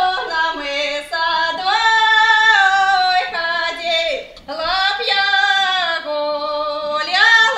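A young woman singing a Russian folk song solo and unaccompanied, in long held phrases with gliding pitch and short breaks for breath.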